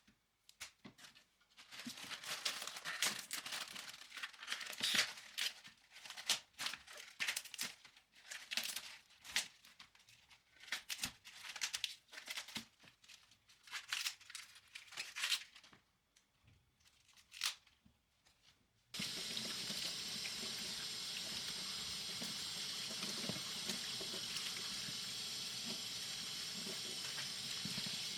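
Vegetable packaging crinkling and tearing in irregular bursts as the produce is unpacked, then a kitchen tap is suddenly turned on and runs steadily into the sink to wash the vegetables.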